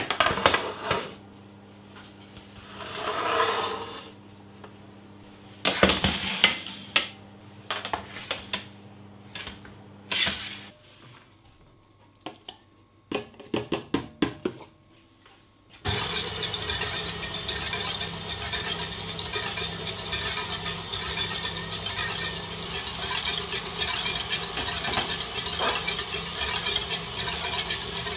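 Egg white tipped into a steel mixing bowl with a few clinks and knocks. About halfway through, a stand mixer switches on and runs steadily, its wire whisk beating the egg whites.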